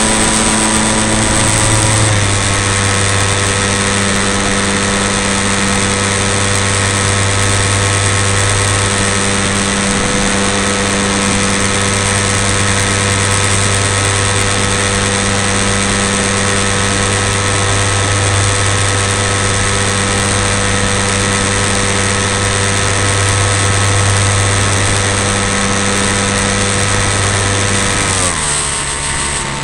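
Engine of a radio-controlled Piper model plane running steadily in flight, heard up close from a camera on the wing, with a constant rush of airflow. Its pitch steps slightly lower about two seconds in, holds, then falls near the end.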